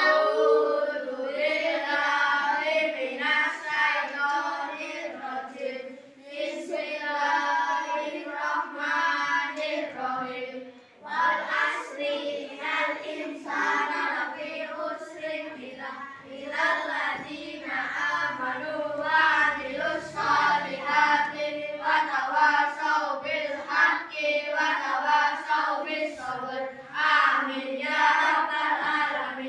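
A group of children reciting a prayer aloud together in a sing-song chant, with short pauses between lines.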